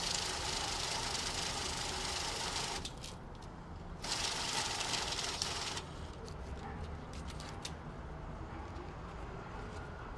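Safescan banknote counter running twice, riffling a batch of notes through with a steady rapid noise, first for about three seconds and then, after a short pause, for about two more. After that, faint rustling and clicks of notes being handled.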